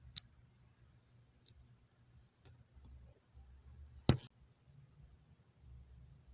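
Handling noise from a phone held close to its microphone: a sharp click just after the start, a few faint taps, and a loud double knock about four seconds in, over a low rumble of fingers shifting on the phone.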